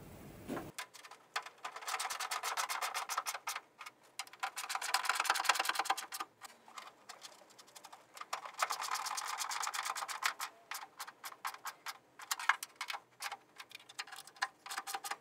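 Ratchet wrench clicking fast as it is swung back and forth, tightening a nut onto a bolt. The clicking comes in several runs of one to three seconds with short pauses between strokes.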